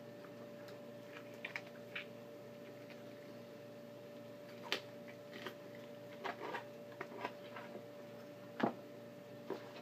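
Raw whole chicken being handled and pulled at by hand on a wooden cutting board: scattered short wet squishes and knocks, the loudest near the end, over a steady faint hum.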